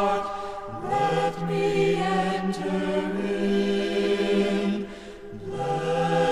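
Late-1960s religious folk-rock recording: a group of voices singing long held notes together, sliding up into a new note about a second in and again near the end.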